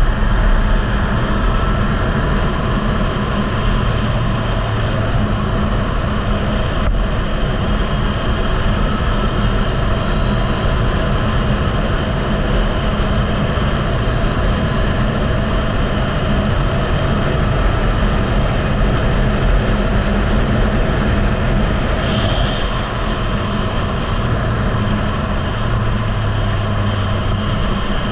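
Heavy wind noise on the microphone of a Yamaha MT-09 ridden at speed, with the bike's inline-three engine running steadily underneath and shifting slightly in pitch.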